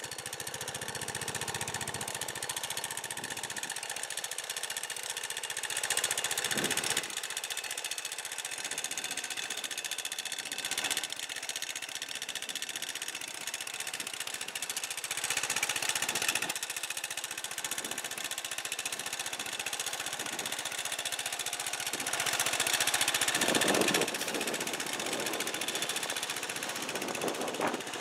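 International Harvester Cub Cadet 123 garden tractor's single-cylinder engine idling with a rapid, steady putter, heard through a camcorder's built-in microphone. It grows louder for a second or two about six seconds in, around fifteen seconds and around twenty-three seconds.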